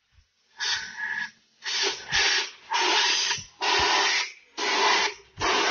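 Compressed-air blow gun giving about six short blasts of hissing air, roughly one a second, blowing out the engine block's main bearing saddles.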